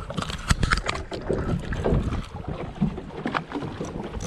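Wind buffeting the microphone on a small open fishing boat at sea, with irregular knocks and bumps throughout.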